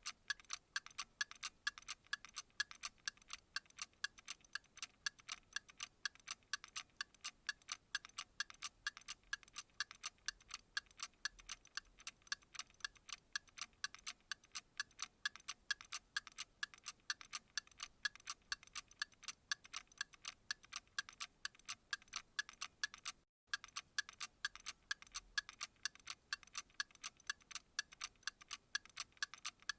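Steady, even clock ticking, light and crisp with no low thump, broken by a split-second dropout about 23 seconds in.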